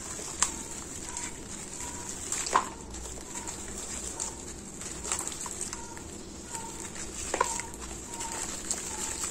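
Dry sand-cement lumps crumbled between gloved hands, the grit and powder falling onto wet cement slurry: a soft gritty crackle and patter, with a few sharper cracks as lumps break, about half a second in, two and a half seconds in and near the end.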